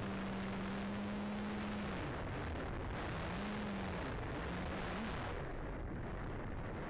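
A foam-board RC airplane's electric motor and propeller humming, heard through the onboard camera's microphone under heavy wind rush. The hum holds steady for about two seconds, dips and rises as the throttle is worked, then stops about five seconds in as the plane glides in to land, and the wind rush runs on until it cuts off suddenly at the end.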